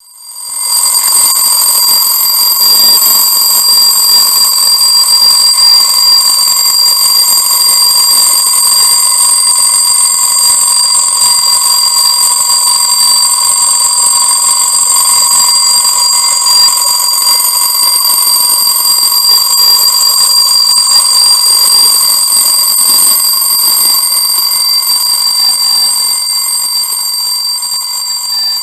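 Herweg 2709 alarm clock's alarm ringing continuously with a loud, steady, shrill ring. It starts suddenly and carries on without a pause, easing slightly near the end.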